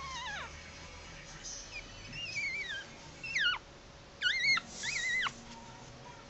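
Week-old Maltese puppies squeaking and whining while nursing: about six short, high, thin cries that fall or waver in pitch, the loudest a little past the middle.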